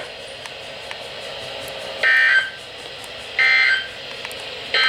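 NOAA Weather Radio Emergency Alert System data tones: three short, identical bursts of buzzing digital code about a second and a third apart, the last starting near the end. Sent straight after the tornado watch statement, they are the end-of-message code that closes the alert. Low radio hiss fills the gaps between bursts.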